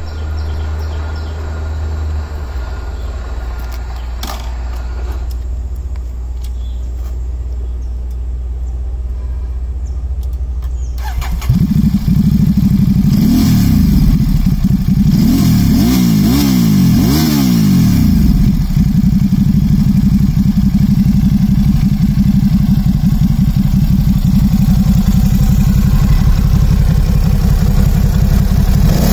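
Ducati Supersport S's 937cc L-twin on its stock exhaust starting about eleven seconds in, after a low steady rumble. It is blipped four or five times in quick rising-and-falling revs, then settles to a steady, throaty idle.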